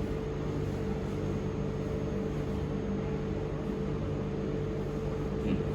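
Steady mechanical hum with a constant mid-pitched tone over a low drone, the running noise of room equipment such as air conditioning.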